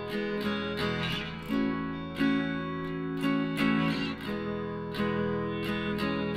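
Background music: an acoustic guitar strumming a steady rhythm.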